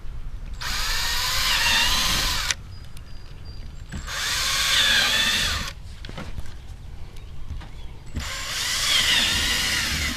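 Electric drill with a 3/16-inch bit drilling through a plastic bumper cover, in three runs of about two seconds each with short pauses between, the motor's pitch dipping and recovering as the bit cuts.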